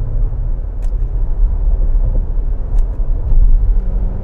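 Cabin noise of a Range Rover Velar SV Autobiography Dynamic Edition cruising at expressway speed: a steady low road-and-engine rumble. A steady low hum joins near the end.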